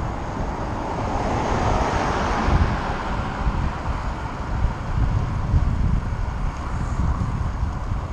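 Wind buffeting the microphone of a bicycle-mounted camera while riding, over the hiss of tyres on wet tarmac. A swell of road noise rises and fades about one to three seconds in, as a car goes by.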